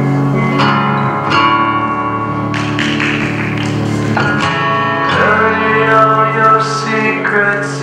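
Recorded song played for a dance routine: guitar-led music with a voice singing.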